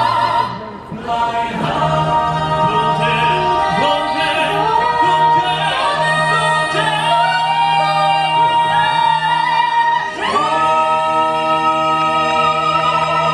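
A cappella choir singing sustained notes in close harmony, moving to a new chord about ten seconds in that is held long.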